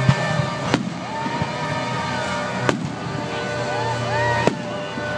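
Aerial fireworks shells bursting overhead: four sharp bangs at uneven intervals, the first right at the start, with music and voices going on underneath.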